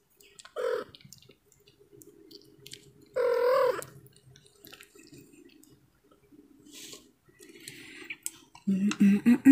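A kitten mews twice, a short mew about half a second in and a longer, wavering one at about three seconds, between faint wet clicks of it mouthing and nibbling a person's fingers.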